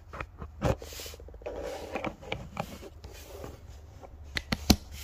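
Colour pens being handled and set down: scattered light clicks and taps, a few in quick succession near the end, over a steady low hum.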